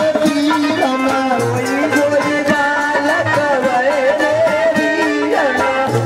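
Devotional folk music: a wavering melody over regular hand-drum beats, with the audience clapping along.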